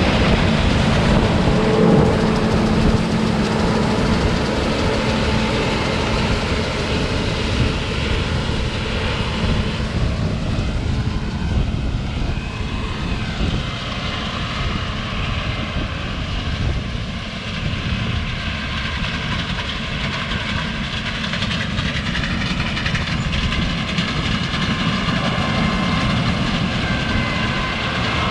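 Heavy farm machinery's diesel engine running steadily, a continuous low rumble with a constant hum.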